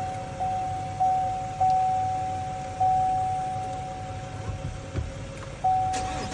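Electronic warning chime of a 2018 Cadillac Escalade sounding inside the cabin. It is one steady tone that strikes again and again, each strike fading slowly. Three strikes come about half a second apart, then the strikes space out, with one near the middle and one near the end.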